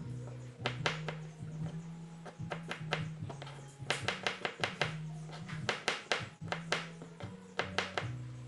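Kitchen knife chopping garlic cloves on a plastic cutting board: quick runs of sharp taps with short pauses between them. Background music runs underneath.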